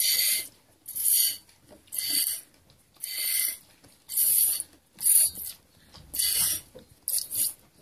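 A goat being hand-milked: with each squeeze of the teat a stream of milk squirts into a jar with a short hiss. The squirts come in a steady rhythm of about one a second, eight in all.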